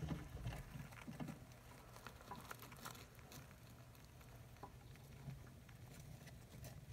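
Faint, scattered soft crackles and ticks of shredded newspaper bedding as an African soft-furred rat mother shifts over her suckling pups.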